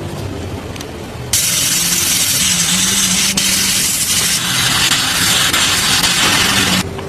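Paint spraying: one long steady hiss of about five seconds that starts and stops abruptly, with a faint low hum under it.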